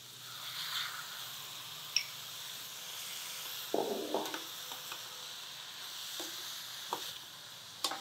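Onions, spices and chopped tomatoes sizzling faintly in oil in a stainless steel pan, while a metal spoon scrapes and clinks against the pan as they are stirred. The scraping is briefly louder about four seconds in.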